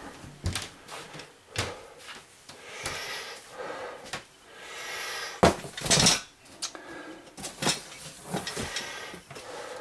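A chair and other stored belongings being shifted and set down: scattered knocks, clicks and scraping with rustling in between, and two sharper knocks about five and a half and six seconds in.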